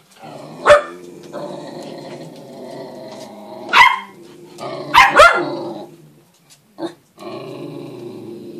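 Dogs barking: a sharp bark about a second in, another near four seconds, and two quick ones just after five seconds, over a drawn-out, steady dog vocalising that stops briefly near seven seconds.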